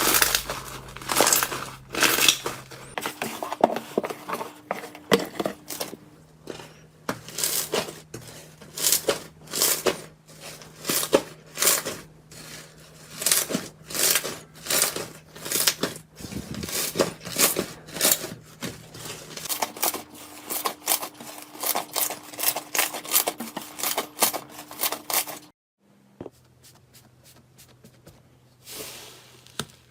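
Slime being squeezed and stretched by hand, giving a run of sharp crackles and pops, roughly two a second. They stop for a few seconds near the end, then start again.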